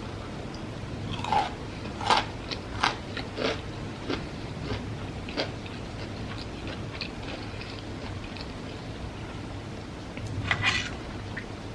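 Close-miked biting and chewing of crispy fried food: a run of loud, sharp crunches over the first few seconds, softer crunching chews through the middle, and another burst of crunching near the end.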